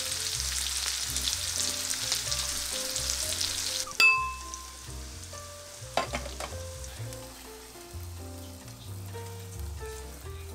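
Food sizzling in a frying pan for about four seconds. It stops abruptly at a sharp clink that rings briefly, followed by a few light knocks, over soft background music.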